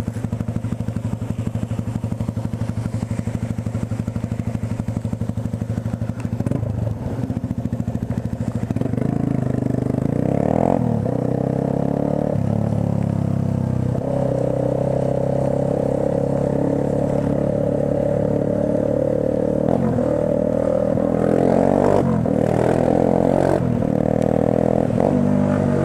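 Motorcycle engine idling at a stop, then pulling away about nine seconds in and accelerating, its pitch climbing and dropping back several times as it shifts up through the gears.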